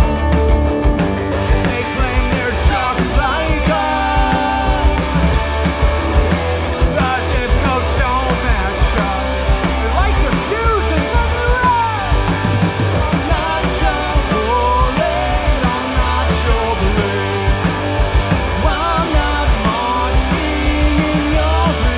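Punk rock band playing live: distorted electric guitars, bass and a drum kit, with a sung vocal line over them.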